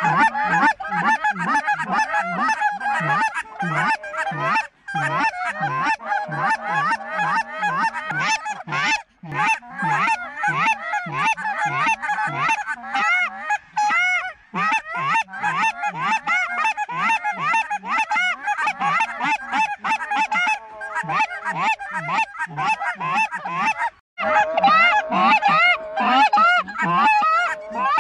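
A large flock of snow geese calling: a dense, unbroken chorus of overlapping high honks.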